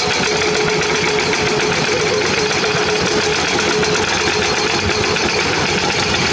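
Hydraulic excavator's diesel engine running steadily, with a steady whine above the engine noise.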